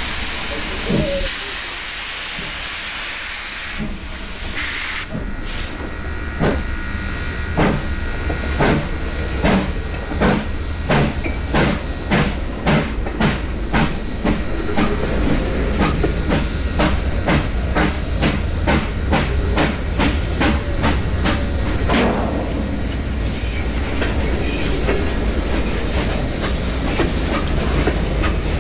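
1924 Baldwin steam locomotive hissing steam, then starting off. Its exhaust chuffs begin about five seconds in at roughly one a second and quicken steadily to several a second. Intermittent high squeals come in the last few seconds.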